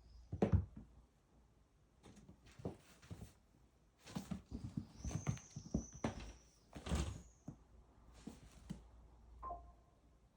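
A kitten scuffling and tumbling against a cat cave: irregular soft thumps and scratchy rustling of claws and paws in bursts, the loudest bump about half a second in.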